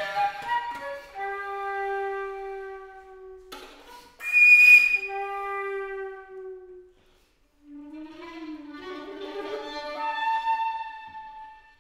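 Flute and violin duo playing contemporary chamber music in long held notes. A sharp, breathy accent comes about four seconds in, a brief pause follows a few seconds later, and then wavering notes climb in pitch.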